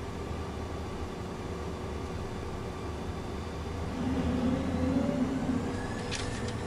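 Cessna Citation jet cabin noise while taxiing: a steady engine and airflow hum that grows louder for about a second and a half partway through, with a few sharp clicks near the end.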